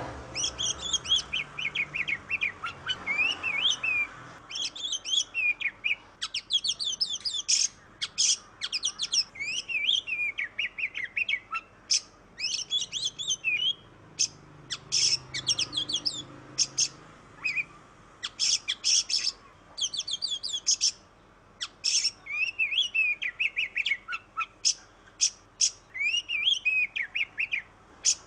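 Oriental magpie-robin (kacer) in full song: a long run of quick, varied high whistles and chattering notes, phrase after phrase with short gaps between.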